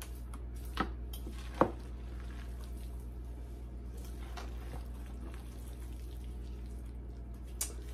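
Wooden spoon stirring a thick, moist noodle, cabbage and ham mixture in a large stainless steel stock pot: soft wet stirring sounds, with two sharp knocks of the spoon against the pot about one and two seconds in. A steady low hum runs underneath.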